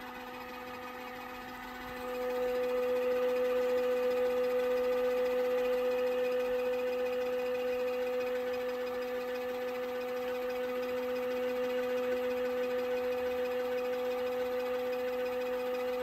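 Small electric motor of a collapsible portable mini washing machine running its spin cycle, spin-drying wet clothes: a steady hum with a constant pitch. It is a little quieter for the first two seconds, then louder and even.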